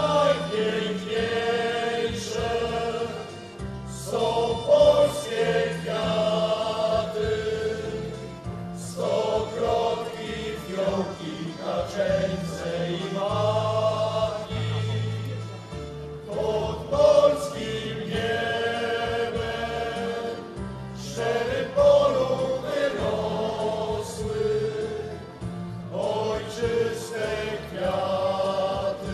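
A choir singing a Polish patriotic song over instrumental accompaniment with a steady bass line.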